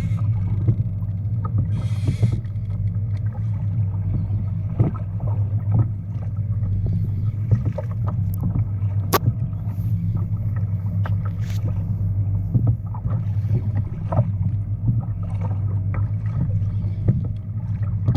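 Fishing kayak being towed by a big hooked fish on a 'sleigh ride': a steady low rumble of water rushing past the hull, with frequent small splashes and knocks against the boat throughout.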